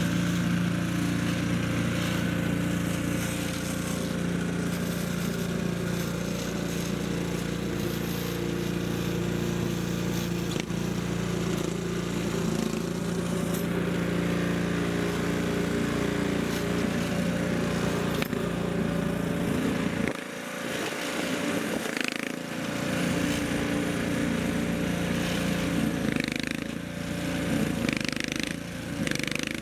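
A small engine runs steadily with a constant hum. Around twenty seconds in the low part of the hum drops away, and a higher, slightly wavering engine note carries on.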